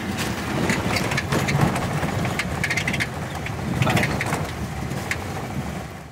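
Car cabin noise on a dirt road: a steady low road rumble with repeated rattles and knocks from the car's body and interior. It fades out at the very end.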